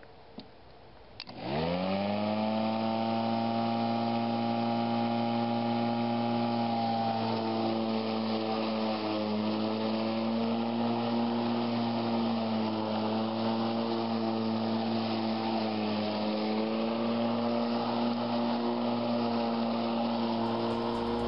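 Greenworks 20-inch 12-amp corded electric lawn mower starting after two clicks: its motor and blade spin up with a quickly rising whine about one and a half seconds in, then run steadily while cutting grass, the pitch dipping slightly now and then.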